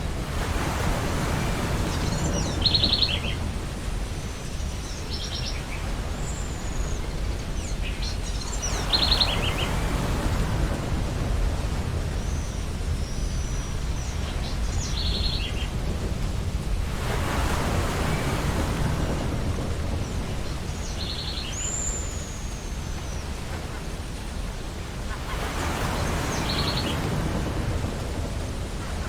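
Ocean surf washing onto a beach, swelling with a breaking wave about every eight seconds, four times. Seagulls call over it again and again in short quick series of cries, with some high falling calls.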